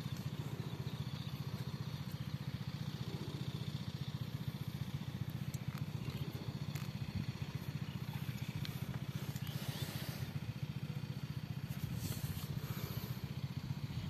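An engine running steadily at a constant speed: a continuous low hum with a rapid, even pulse. Brief faint rustles come twice in the second half.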